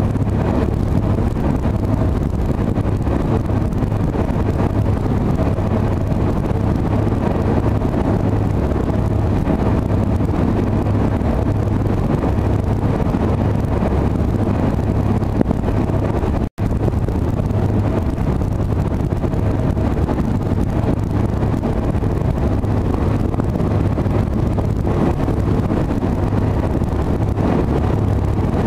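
Steady low drone of a fast ferry's engines heard on board while underway, with wind buffeting the microphone. The sound cuts out for a split second about halfway through.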